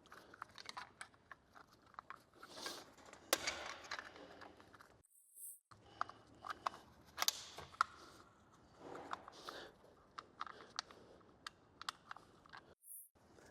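Light clicks, taps and rattles of small plastic and metal chainsaw parts being handled and fitted by hand, with a few soft rustles, while a Stihl 500i's brake spring cover is put back on. The sound cuts out completely twice, briefly.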